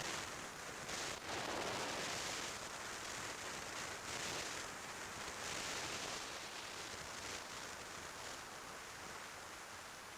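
Wind rushing over a motorcycle-mounted camera microphone at riding speed, a hissing rush that rises and falls in gusts, with no clear engine note above it. It eases slightly near the end.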